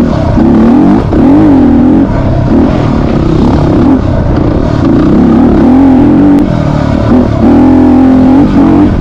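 Yamaha WR250R's single-cylinder four-stroke engine revving up and down over and over as the throttle is opened and closed on a rough uphill dirt climb, over a steady low rumble.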